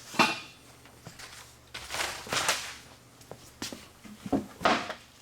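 A few sudden knocks and rustling handling noises: a sharp knock just after the start, a longer rustle about two seconds in, and smaller knocks near the end.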